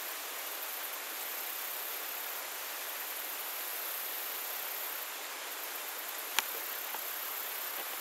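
Steady rush of a shallow creek running over stones, with one sharp click about six seconds in.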